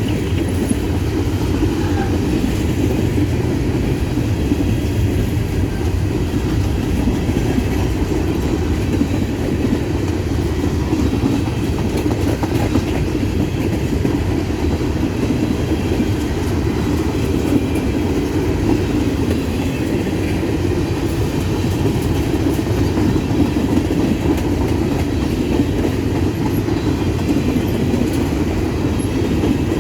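Empty grain hopper cars of a freight train rolling past, wheels clattering over the rail joints in a loud, steady rumble.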